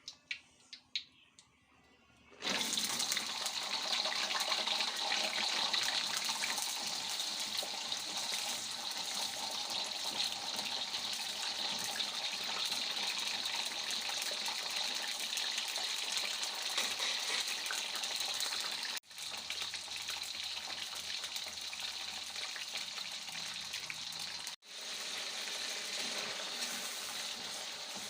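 A few clicks, then water running steadily from a tap into a sink. It breaks off for an instant twice.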